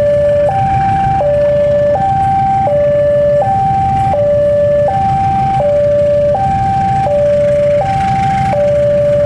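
An electronic two-tone warning alarm, switching evenly between a higher and a lower note about every three-quarters of a second, over the steady low running of a KAI CC 203 diesel locomotive's engine as it pulls a train out.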